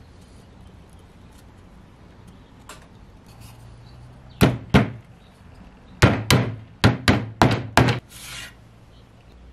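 Small hammer tapping small nails into a wooden wing-rib piece lying on a board: two sharp strikes, then a quick run of about seven more.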